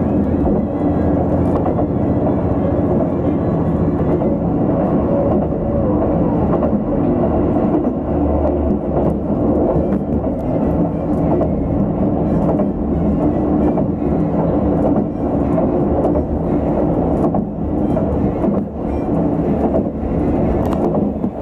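Diesel railcar running along the line, heard from on board: a steady engine drone and rumble of wheels on rails, with scattered clicks from the track.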